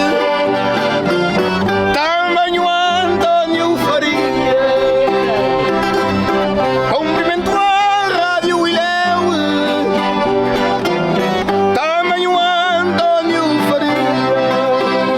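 Traditional Azorean folk music: accordion and plucked string instruments playing together while voices sing along with vibrato.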